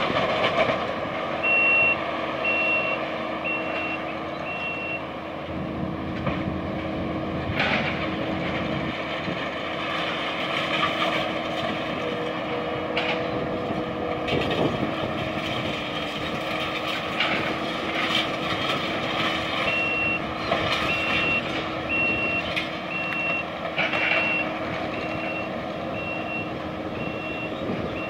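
Compact track loader's diesel engine running steadily on a demolition site, its back-up alarm beeping about once a second for a few seconds near the start and again through the last third. Occasional short clanks are heard as well.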